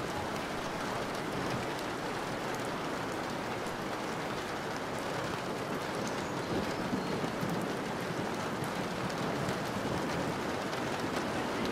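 Steady rush of flowing river water, an even hiss like heavy rain.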